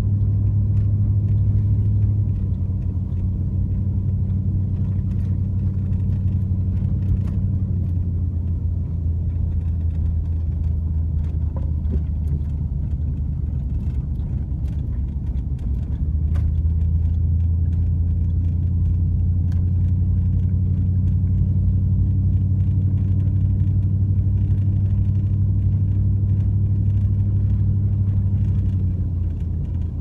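Engine and tyre drone of a car heard from inside the cabin while driving on a snow-covered road: a steady low hum. Its pitch drops a little about two seconds in, rises again about halfway through, and drops once more near the end, as the car slows and speeds up.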